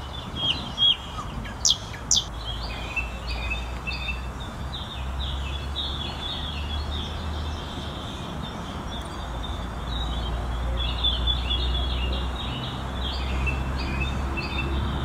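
Small birds chirping over and over, with a few sharp, louder high notes in the first couple of seconds, over a steady low outdoor hum.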